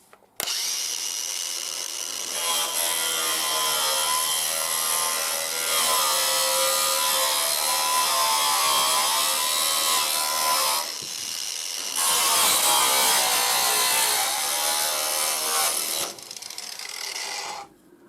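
Power grinder cutting through the thin copper of a lamp post's crown, its motor pitch wavering under load. It makes two long cuts with a brief pause between them, about 11 seconds in.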